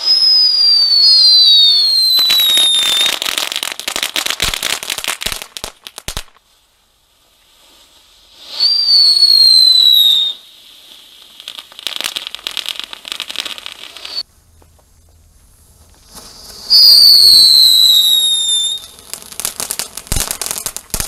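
Lesli Escalada whistling fountains (CAT 1 fireworks) going off one after another. Three times a loud whistle falls in pitch over two to three seconds, and each is followed by a few seconds of dense crackling.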